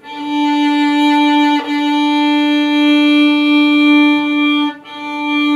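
Violin's open D string bowed in long, even strokes as an open-string exercise: one steady note, with short breaks at the bow changes about a second and a half and nearly five seconds in.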